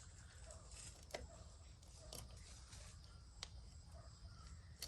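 Near silence with a handful of faint, sharp clicks about a second apart, from a knife cutting the fin off a mullet.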